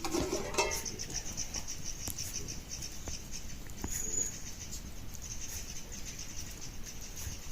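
Steady, high-pitched pulsing chirr of insects, with a short call at the very start and a brief high chirp about four seconds in.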